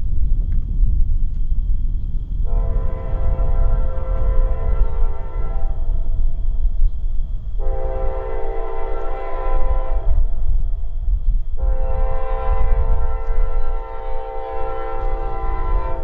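CSX diesel freight locomotive's multi-chime air horn sounding three long blasts, the last still held at the end, the grade-crossing signal as the train nears a crossing. A steady low rumble of the approaching train runs underneath.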